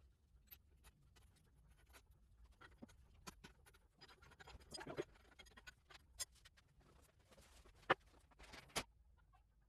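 Scattered light clicks, knocks and scraping of metal parts being worked loose while a garden tractor's hydrostatic transmission is pulled out, with one sharp knock near eight seconds.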